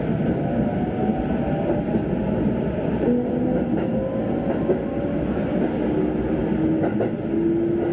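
Inside an electric commuter train on the move: steady rumble of wheels on the rails with a few light clicks, under a motor whine that slowly rises in pitch as the train gathers speed.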